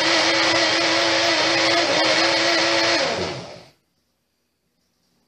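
Personal push-down blender running steadily, pureeing spinach and water into a soupy mixture. About three seconds in the cup is released and the motor winds down with a falling pitch to a stop.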